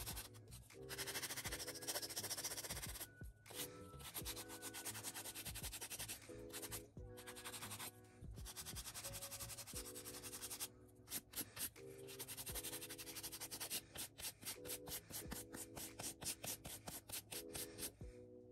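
Nail file rubbing across acrylic nails in quick back-and-forth strokes, over background music.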